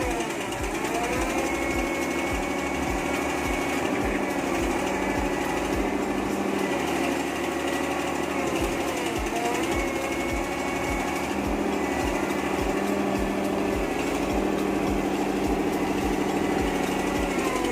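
Hitachi UH07 excavator's diesel engine running steadily. Its pitch dips briefly and recovers twice, near the start and about nine seconds in.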